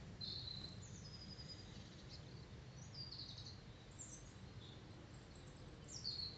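Faint songbird chirps, a few short high notes scattered over several seconds, one falling note near the end, over a low steady background rumble.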